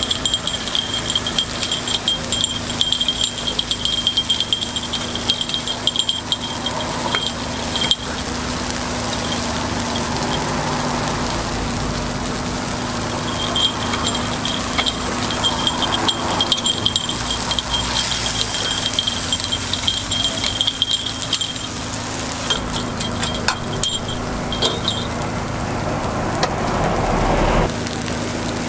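Metal takoyaki picks clicking and scraping against a cast-iron takoyaki pan as the balls are turned, in quick runs of light metallic ticks with a faint ringing, over a steady sizzle of the cooking batter.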